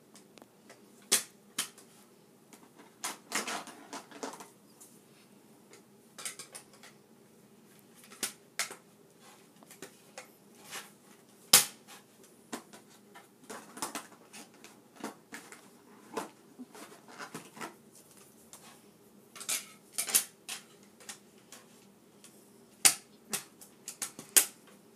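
Plastic toy car-track pieces being handled and pushed together: irregular clicks and clacks, with one sharper clack about halfway through.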